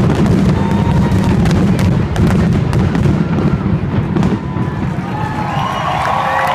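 Aerial fireworks going off in quick succession: a continuous rumble of booms with many sharp crackles layered over it.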